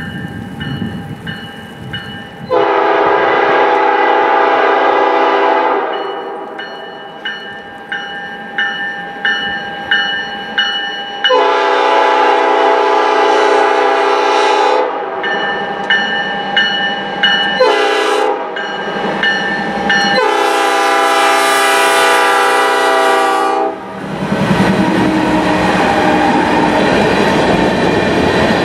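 Diesel locomotive horn sounding the grade-crossing pattern: two long blasts, a short one and a final long one. Under it a locomotive bell rings steadily at about two strikes a second. Near the end the locomotive and its covered hopper cars pass close by, with a steady noise of wheels on the rails.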